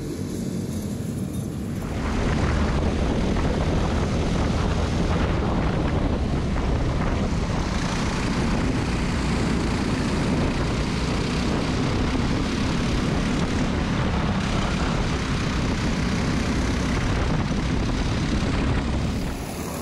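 Briggs & Stratton LO206 single-cylinder four-stroke kart engine running at racing speed, heard from the onboard camera with wind rushing over the microphone. For the first couple of seconds and again near the end it is a quieter, more distant rumble of karts heard from trackside.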